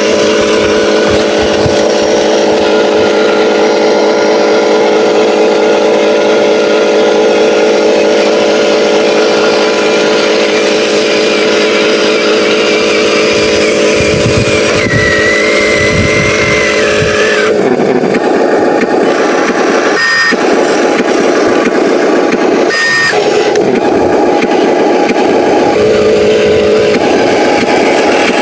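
Engine sound of an RC Scania logging truck running steadily, then shifting to a rougher, higher note about two-thirds of the way through, with two brief drop-outs near the end.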